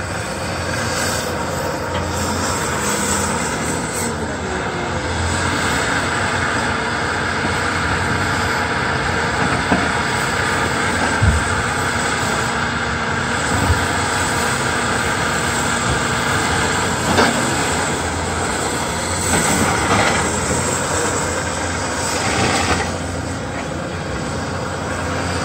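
Diesel engine and hydraulics of a Cat tracked processor running steadily while its Southstar head swings and sets logs on a log truck, with a few faint knocks.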